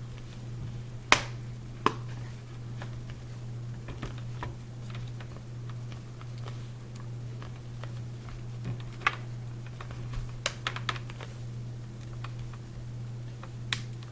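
Plastic screen bezel of a Lenovo IdeaPad S405 laptop being pressed back on, its clips snapping into place in sharp, irregular clicks: two about a second apart near the start, a quick cluster past the middle, and one more near the end, over a steady low hum.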